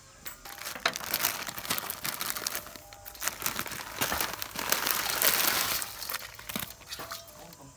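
Thin plastic bag crinkling and rustling as dried yellow noodle nests are tipped and pulled out of it by hand, loudest about four to six seconds in.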